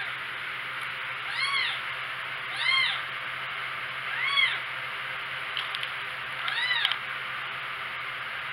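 Four-week-old kitten meowing: four short, high calls spaced a second or two apart, each rising and then falling in pitch.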